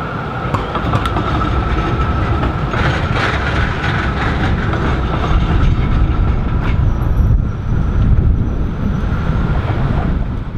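Melbourne articulated electric tram running along street track and pulling away, with a steady whine in the first few seconds. Road traffic rumbles louder in the second half.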